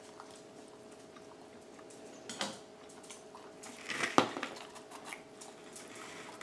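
A man chewing a mouthful of pizza, with a few short knocks and rustles from the cardboard pizza box being handled, the loudest about four seconds in. A faint steady hum runs underneath.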